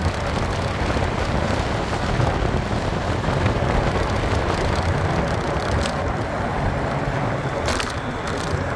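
Wind rushing over the microphone, with tyre and road noise, from an electric motorcycle riding at about 55–60 km/h. The noise is a steady, even rush with a low rumble underneath, and no engine note.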